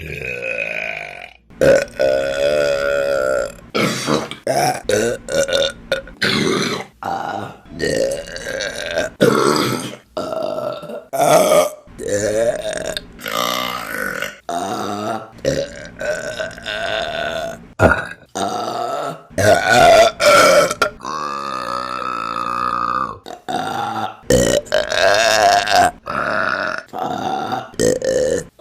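Women burping, one burp after another, cut together with abrupt edits. Most are short, and a few are long and drawn out with a wavering pitch.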